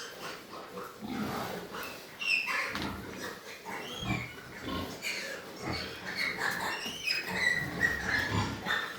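Pigs grunting in short, irregular bursts, with a few higher-pitched squeals near the end.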